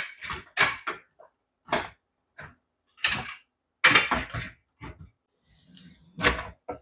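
Glass oil and condiment bottles set down one after another on the metal shelves of a pull-out kitchen cabinet, a string of separate clinks and knocks. About six seconds in, the pull-out cabinet is pushed shut with a heavier thud.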